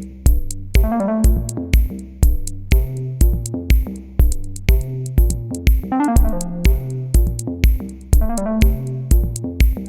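Electronic background music with a steady drum-machine beat, about two beats a second, under synthesizer chords.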